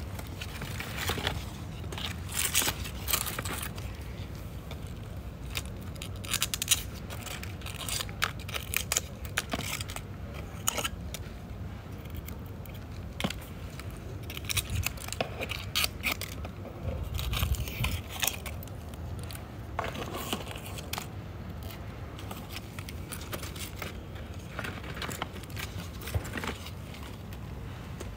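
Dried, dead succulent leaves being stripped off the plants by hand: irregular crisp crackling and rustling with scattered sharp snaps, over a steady low hum.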